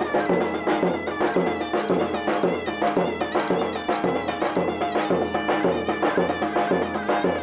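Traditional folk music: a shrill reed pipe playing a wavering melody over a drone and a steady drum beat.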